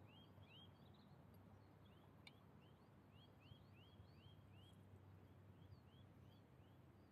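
Near silence with a faint small bird singing: a quick run of short rising chirps, about three a second.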